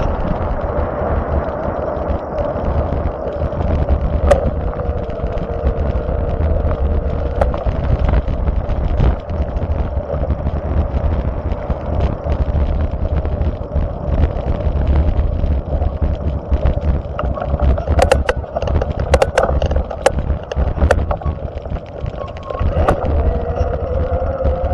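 Wind buffeting the microphone and road rumble from a slowly moving vehicle, over a steady, wavering whine. A cluster of sharp clicks comes about three-quarters of the way through.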